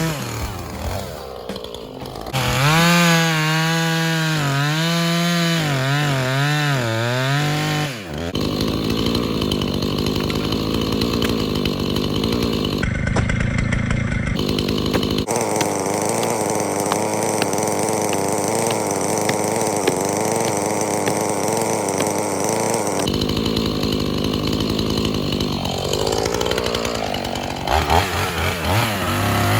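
Husqvarna two-stroke chainsaw making the face cut and back cut in a palm trunk. The engine pitch rises and falls with the throttle at first, then holds steady under load in the cut. It drops back toward idle and revs up again near the end.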